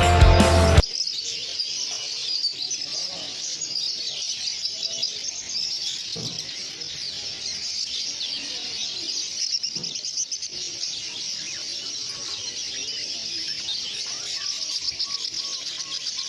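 Music cuts off under a second in, giving way to a dense chorus of many caged songbirds chirping and twittering together without pause.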